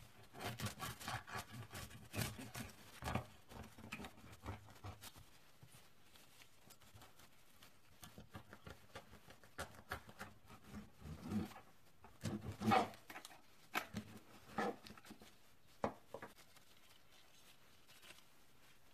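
Kitchen knife sawing through the crust of a homemade whole wheat loaf: a quick run of crackling strokes for about five seconds, then scattered separate crunches as the cut finishes.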